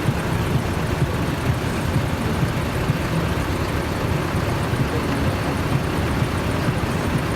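Large diesel truck engines running steadily, a low, even rumble.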